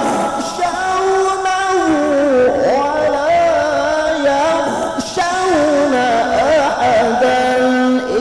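A man's solo Quran recitation in melodic tilawah style, sung into a handheld microphone, with long held notes and quick ornamented turns in the melody.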